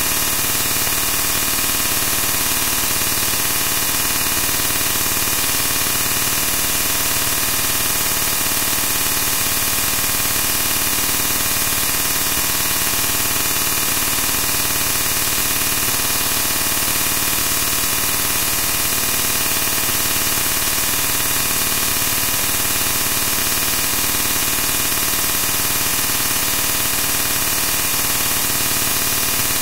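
Steady, loud hiss of static noise that never changes, with no speech or distinct events in it.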